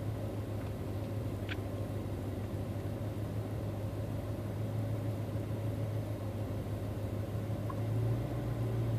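Truck engine idling steadily, heard from inside the cab as a low, even hum, with one faint click about a second and a half in.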